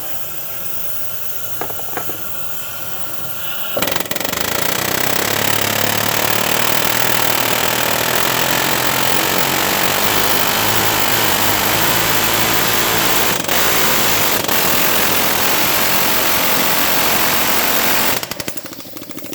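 Air hammer running in one long continuous burst of about fourteen seconds, starting a few seconds in and stopping near the end. It is being used on a seized, corroded EGR valve to break it loose.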